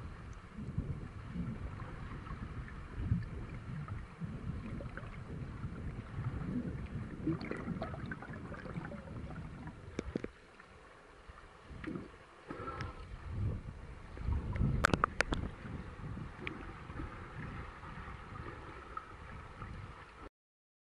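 Muffled sloshing and rumbling of water heard through an underwater camera's microphone as a swimmer swims front crawl, coming in uneven surges. There are a few sharp clicks about two-thirds of the way through, and the sound cuts off abruptly just before the end.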